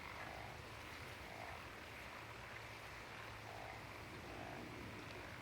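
Frogs croaking faintly, soft calls about once a second, over a steady quiet night-time background.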